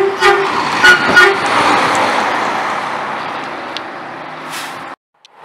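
A Volvo dump truck's horn gives several short toots in the first second or so, then the truck's engine and tyres are heard as it drives past and away, fading. The sound cuts off suddenly near the end.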